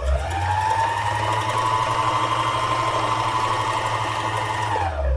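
Needle-felting machine running for about five seconds, its needles punching rapidly into green wool to felt a leaf. The motor speeds up as it starts and slows to a stop near the end.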